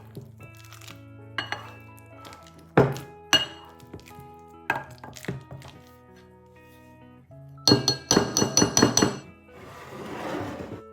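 Background music over kitchen sounds. A utensil knocks against a bowl or dish a few separate times, then clinks against it rapidly for about a second and a half. A short rustle follows near the end.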